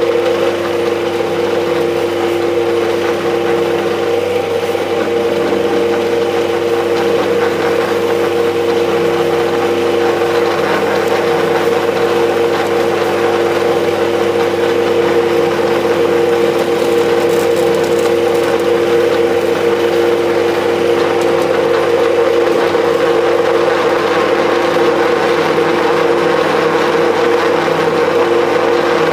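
A 210-type flat-die feed pellet mill, driven by a three-phase 7.5 kW electric motor, running steadily under load as it presses dry chopped straw. It gives a loud, even hum with two steady tones over a grinding noise.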